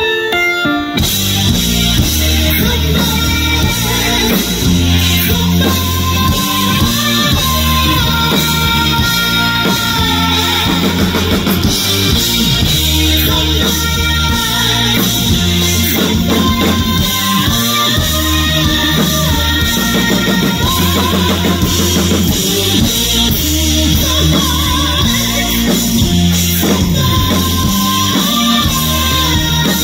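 Live rock band playing: drum kit, bass and guitar come in fully about a second in and keep a steady beat.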